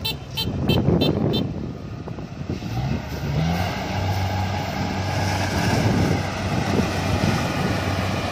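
Rice combine harvester's engine revving up about three seconds in, then running steadily at the higher speed. A run of quick beeps, about three a second, stops about a second and a half in.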